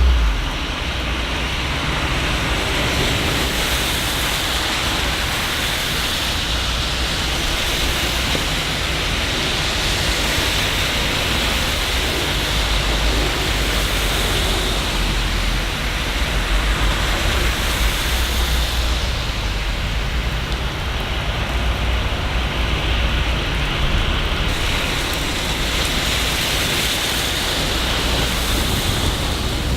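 Steady rain, an even hiss, with a low rumble underneath that is strongest about halfway through.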